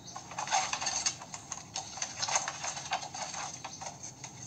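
Split bamboo halves clacking and knocking against each other and the pole frame as they are laid and pressed into place for a floor: a quick, irregular run of light clicks, thin as heard through a small console speaker.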